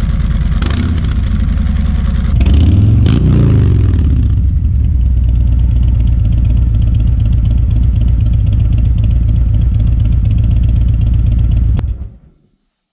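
Harley-Davidson Road Glide Special's Milwaukee-Eight 114 V-twin running through Vance & Hines 4.5-inch High Output slip-on mufflers. It idles, is revved once with the pitch rising and falling, settles back to idle, and is shut off near the end.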